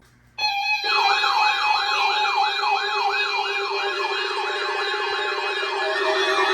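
Weather radio's electronic siren alert starting suddenly: a fast, repeating rising-and-falling wail, about three sweeps a second, over steady tones. It is the alarm for an incoming NOAA Weather Radio weekly test.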